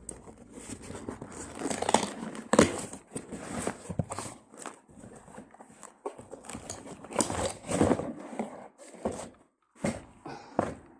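Packaging being handled, crinkled and torn, with irregular rustles and a few knocks while a used door closer is unwrapped.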